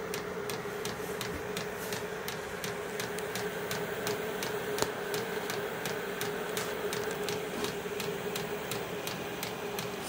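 Vevor 5 kW diesel air heater running on its lowest setting: a steady hum from its blower fan with its fuel metering pump ticking a few times a second. It is still blowing cold air and not yet heating.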